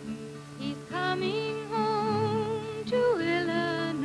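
Background music: a slow melody of long held notes with vibrato, over steady low accompanying notes.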